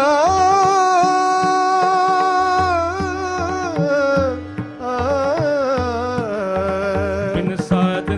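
Sikh Gurbani kirtan: a singer holds long, ornamented notes with no clear words, over a steady held harmonium note and tabla strokes.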